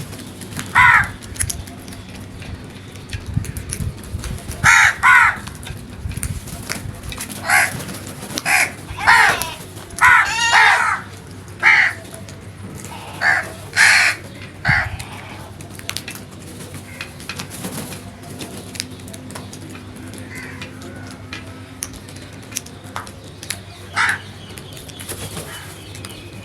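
Crows cawing: a run of short, harsh caws, several in quick succession, in the first half; then a lull with a single caw near the end.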